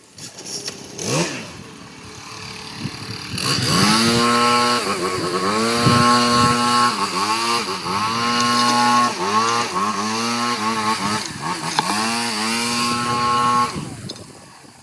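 Small two-stroke engine, most likely a gas leaf blower, running at high throttle with repeated brief dips in engine speed as the throttle is eased and opened again. It dies away near the end.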